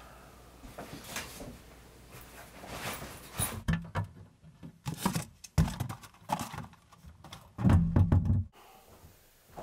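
Knocks and clicks of things being handled in a wooden kitchen cupboard, ending in a loud low thud as the cupboard door shuts, after which the sound drops away.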